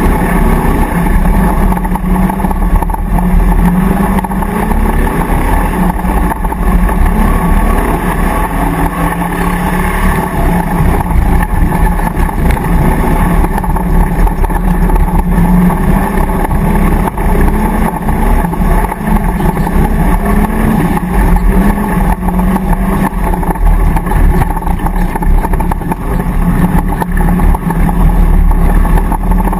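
Land Rover racer's V8 engine running hard under load, heard from inside the cab, its note rising and falling with the throttle over a constant low rumble.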